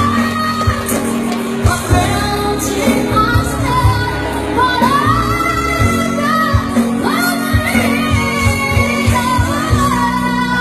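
A voice singing a pop song over instrumental accompaniment, with long held, sliding notes over a steady drum beat.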